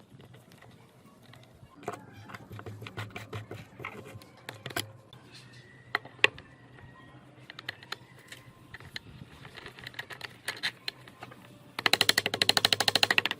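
Scattered clicks and knocks of tools and metal parts being handled, then near the end a loud, rapid, even clatter lasting under two seconds.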